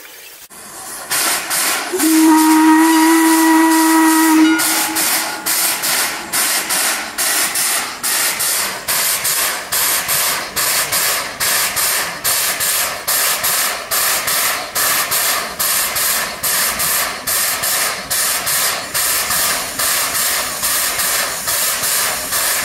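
Steam locomotive hissing, then its steam whistle blows once, a single steady note about two and a half seconds long. It then starts off with a steady beat of exhaust chuffs, about two to three a second, with steam venting low by the cylinders.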